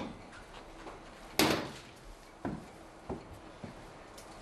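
Heavy metal hatch door being unlatched and swung open by its lever handle: one loud clunk about a second and a half in, then a few lighter knocks.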